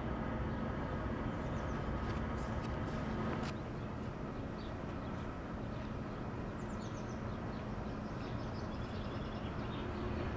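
Steady outdoor street ambience: a low hum of distant traffic, with a few faint high chirps now and then. The hum drops a little about three and a half seconds in.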